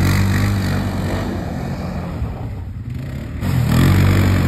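ATV engine running on the throttle. It eases off a little past halfway, then revs back up with a rising pitch near the end.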